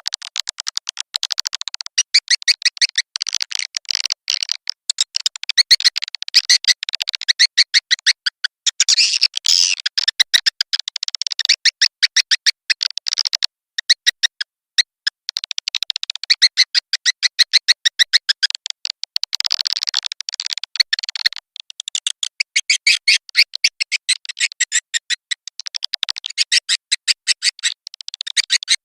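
Swiftlet lure-call recording of the 'birahi' (courtship) type, played to draw swiftlets to a nesting house: high, very rapid twittering chirps and clicks in runs of a few seconds with short breaks between them.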